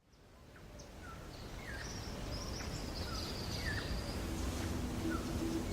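Birds chirping: several short, falling chirps and a thin, high trill over a low, steady rumble, fading in from silence.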